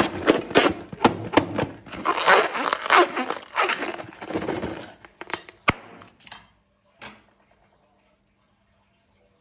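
Slime and balloon rubber being handled: a run of crackling, crinkling clicks and squishes that stops about seven seconds in.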